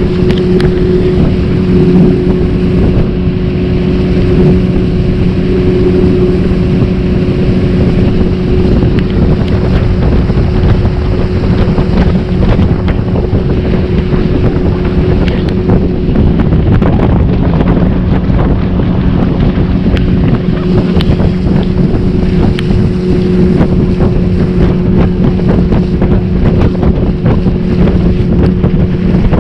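Motorboat engine running steadily at speed, a constant hum, with wind buffeting the microphone.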